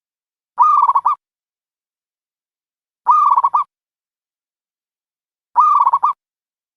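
A dove's cooing call, given three times about every two and a half seconds. Each call is short and ends in a quick stutter of notes, and each is identical to the others.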